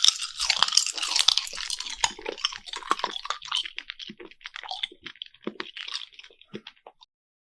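Close-up eating sounds: crisp crunching and wet chewing clicks, dense at first and thinning to scattered smacks before stopping abruptly near the end.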